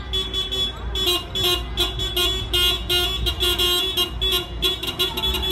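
Car horns of several taxis honking in a quick series of short toots, the horns overlapping, with the cars' engines rumbling underneath.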